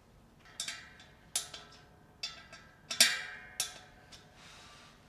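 Hard metal parts clinking together in a series of five or six sharp knocks, each with a short ring; the loudest comes about three seconds in.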